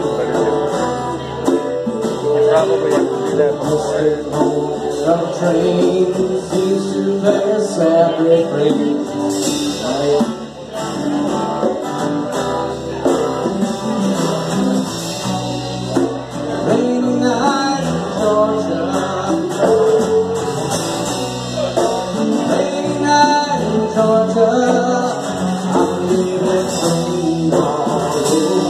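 Live band playing a slow song on electric guitars and electric bass, with a man singing over it.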